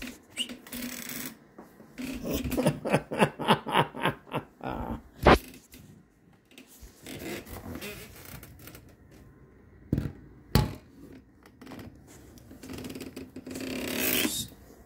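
Handling noise from a handheld phone being moved about: a fast run of scraping or rubbing strokes, a few sharp knocks, and a rustle that swells near the end.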